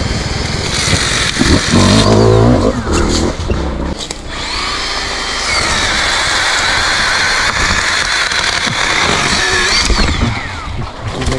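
Small chainsaw cutting through thin tree trunks at ground level, its pitch rising and dropping several times as it revs up and bites into the wood.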